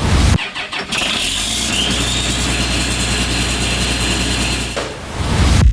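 A diesel engine on harvest machinery starts up about a second in and then runs steadily: a low drone with a high whine over it.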